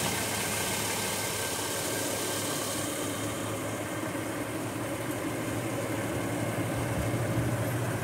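Subaru Outback 3.6R's 3.6-litre six-cylinder engine idling steadily at operating temperature, with a constant low hum.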